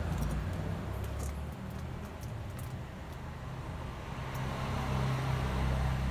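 Steady low rumble of a vehicle engine idling, heard from inside the cabin, with a few faint clicks; the sound cuts off suddenly at the end.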